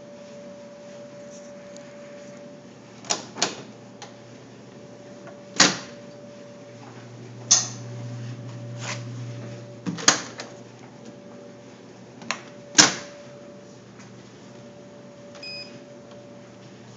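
Laundry appliance humming steadily while a series of sharp knocks and clunks sound from handling the machine, followed by a short electronic beep from the dryer's control panel near the end.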